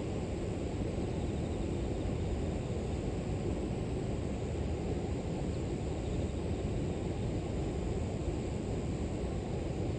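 River water flowing steadily: an even, low rushing noise with no breaks. Above it runs a faint, steady high-pitched drone of insects.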